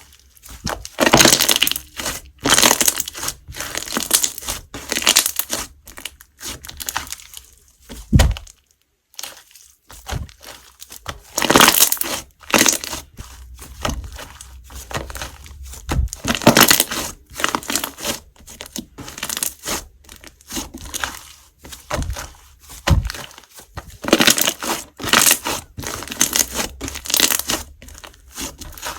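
Slime being squished, pressed and stretched by hands, making irregular bursts of crackling, squelchy noise with a few soft low thuds.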